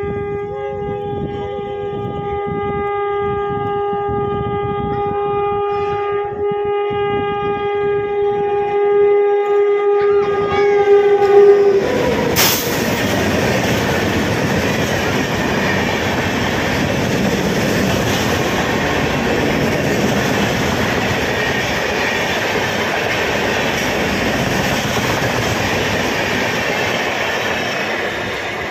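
An approaching express train sounds its horn in one long, steady blast that grows louder for about twelve seconds. The horn stops as the train reaches the platform. Then the long rake of passenger coaches rushes past at speed with loud wheel-on-rail noise, which fades as the last coach goes by.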